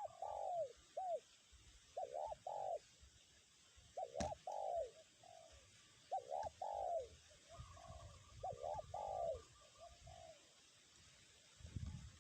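Spotted dove (tekukur) cooing, a phrase of three or four rolling coos about every two seconds, in the song type fanciers call 'kuk 1'. Wind rumbles on the microphone partway through and again near the end.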